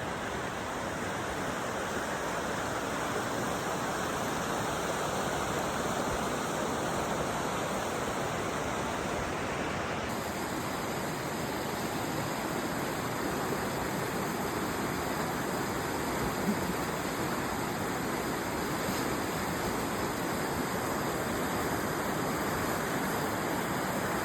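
A creek rushing steadily, running high and fast with spring flow.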